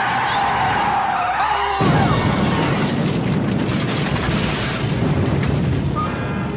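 Car-chase film soundtrack: music over car tyres screeching, then a loud crash about two seconds in, followed by continuing noisy rumble.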